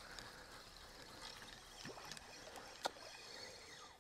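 Faint water lapping at the bank, with a few light clicks and taps, one sharper click about three-quarters of the way through.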